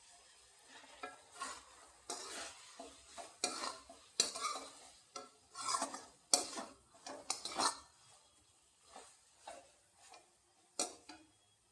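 A spoon stirring and scraping in a cooking pan of Maggi noodles, in irregular strokes about one or two a second.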